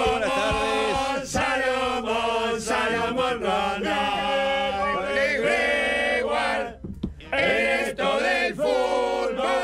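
Male voices singing a chant-like tune together over backing music, with a short break about seven seconds in.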